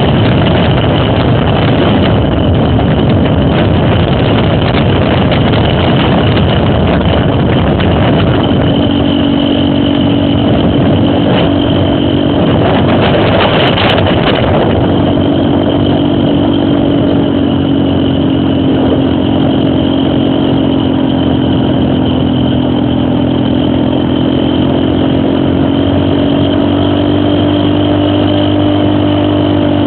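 Trail motorcycle (dirt bike) engine running steadily, its pitch wavering a little up and down.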